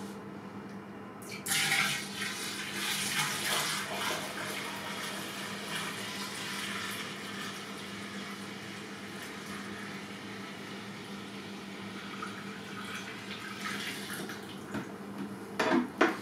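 Sugar syrup poured in a steady stream from a plastic bucket into a 25-litre glass jar of fermenting wheat mash, splashing into the liquid as the jar fills. The pour starts about a second and a half in and is loudest at first, with two sharp knocks near the end.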